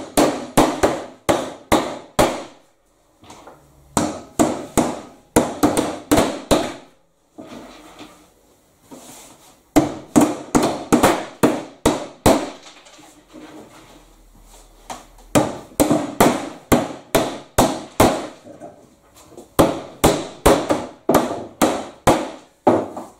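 Hammer driving nails through roof edge trim into a timber deck, in runs of quick strikes about three a second, with short pauses between runs.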